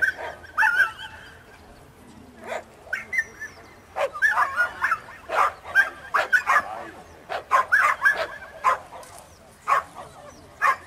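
Dogs yelping, whining and barking excitedly in quick, repeated high-pitched cries. The cries are sparse at first and come thick and fast from about four seconds in.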